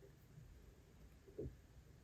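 Near silence: quiet room tone, with one soft, low thump about a second and a half in.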